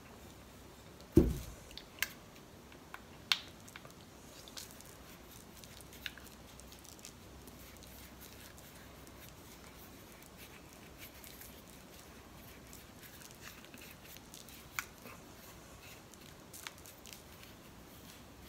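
Quiet handling sounds while a bath-bomb mold is filled: a dull thump about a second in as a glass mixing bowl is set down on the table, then a few sharp ticks and scattered light taps and clicks as the mixture is packed into the mold by hand.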